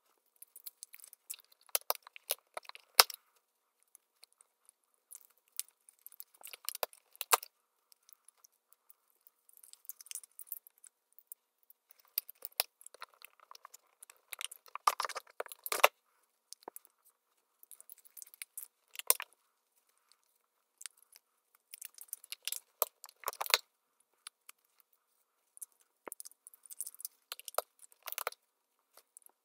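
Light clicking and clattering of plastic watercolour full pans being handled and set into the metal trays of a wooden paint box, coming in about seven short bursts with quiet pauses between.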